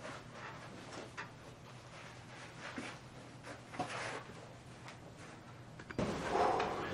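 Soft scattered knocks and rustling of a person getting up and walking away across a small room, over a steady low electrical hum. About six seconds in the sound cuts abruptly to a louder, noisier room.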